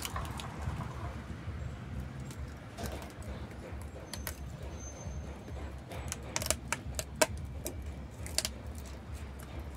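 Fingers digging and scraping potting soil out of the mouth of an old metal can: a run of scratchy crackles and small clicks, with a few sharper clicks in the second half, over a low rumble.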